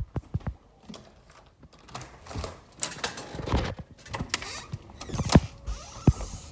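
Irregular clicks, knocks and creaks of objects being handled, the loudest knock about five seconds in.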